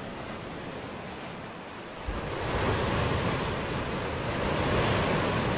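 Ocean surf sound effect: a steady rushing of waves that swells louder about two seconds in.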